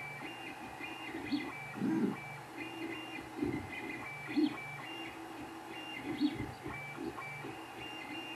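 Creality 3D printer running a print. Its stepper motors whine in short steady tones that jump in pitch as the print head moves back and forth, over the steady hum of its cooling fans.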